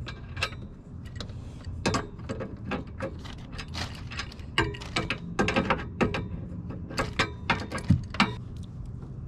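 Ratchet wrench clicking in short, irregular runs as a nut is run down and tightened on the harness bar's mounting bolt.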